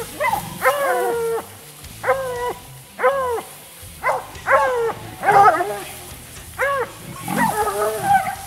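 Hunting hounds baying on a leopard: about a dozen drawn-out bawling calls, each dropping in pitch at its end, with several dogs overlapping near the end.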